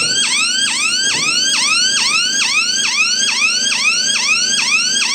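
Control-panel electronic hooter sounding a siren: a rising tone that drops back and repeats about two and a half times a second. It is the low-temperature alarm, on because the sensed temperature is below the set temperature.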